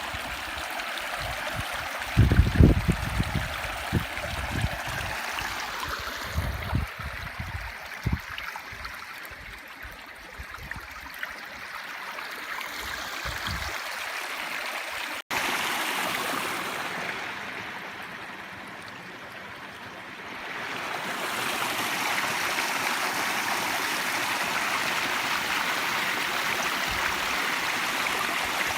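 A flowing stream, a steady rush of running water. There are a few low thumps in the first few seconds. About halfway through the sound cuts out for a moment, then comes back as a brighter, steadier rush.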